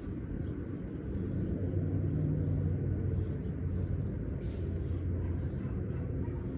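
Squarebody pickup truck's engine idling with a steady, low hum, swelling slightly about two seconds in.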